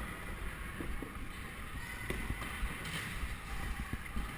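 Scooter riding: a steady low rumble of wheels and wind noise, with scattered light knocks and clacks.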